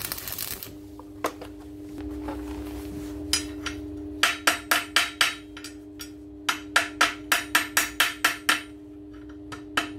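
A stick-welding arc crackles and cuts off just under a second in. Then a welder's chipping hammer knocks slag off the fresh weld in quick runs of sharp metallic taps, about three or four a second, over a steady hum.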